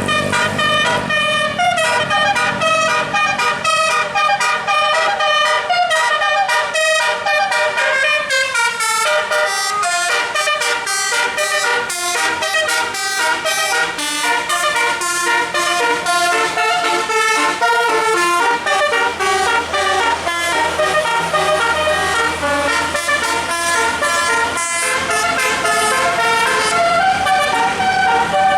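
Tour bus's musical air horn (telolet) playing a fast tune, one pitched note after another in quick steps without a break.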